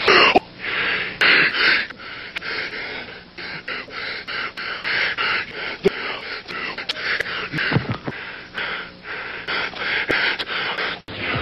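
A person making repeated breathy gasps and pants, short noisy bursts with clicks between them.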